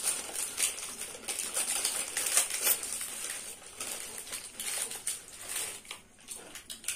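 Plastic snack wrappers crinkling and crackling in quick irregular bursts as a packet of chips and a wrapped fruit cake are opened and handled.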